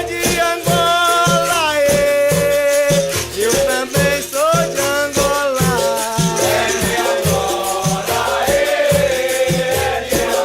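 Capoeira music: a steady drum beat about twice a second, shaken rattling percussion, and a pitched melody line that bends and glides, with some singing.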